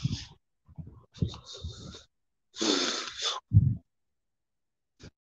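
A person breathing heavily close to a phone microphone, about three loud hissy breaths with a low thump after the last.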